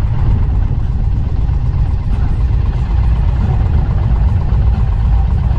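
Engines of several touring motorcycles running at low speed and idling as the group slows and comes to a stop together, a steady low sound with no pauses.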